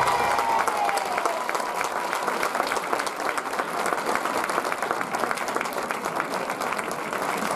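An audience applauding with many hands, steady and dense. The last of the sevillanas music dies away in the first moment.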